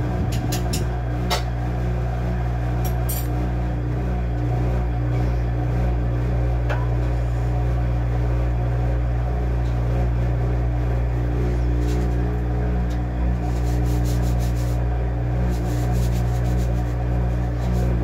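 Top-loading washing machine with a central agitator running: a steady low hum, with a few sharp clicks in the first few seconds.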